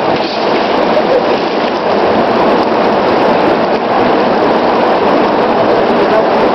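Steady rush of flowing river water, an even, loud hiss with no breaks.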